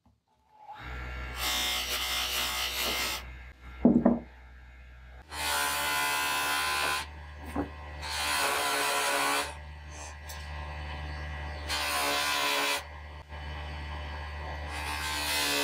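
Electric motor spinning a buffing wheel, with a steady low hum. About five times a louder scraping hiss rises over it as a small brass lighter part is pressed against the wheel to polish it. A loud knock comes about four seconds in.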